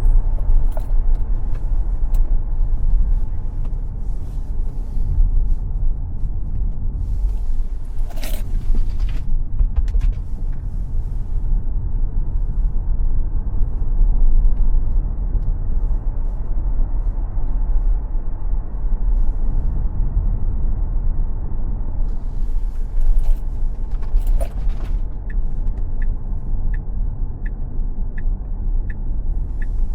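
Tesla Model X driving with no engine sound, only a steady deep tyre and road rumble and wind noise heard inside the cabin. A brief hiss flares twice, about eight seconds in and again about twenty-four seconds in, and near the end a regular ticking of about two a second starts over the rumble.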